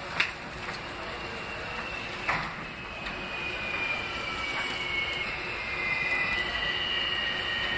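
R160 subway train approaching, its wheels squealing: a long high-pitched squeal of two steady, slowly falling tones sets in about two seconds in, over a rumble that grows louder. There is a sharp clank at the start and another just before the squeal begins.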